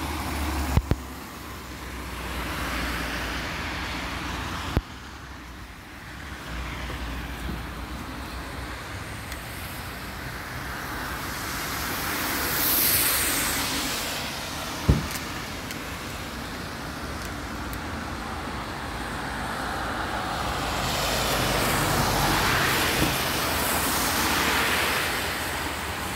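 Cars passing on a rain-soaked road, their tyres hissing on the wet surface, rising and fading as each goes by, once around halfway and again in the last few seconds, over a low rumble. A few short sharp knocks.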